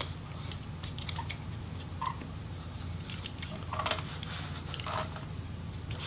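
Scattered light clicks and short scrapes of fingers and a pointed tool working the ribbon-cable connectors and their retainers on a MacBook Pro A1398 logic board, over a steady low hum.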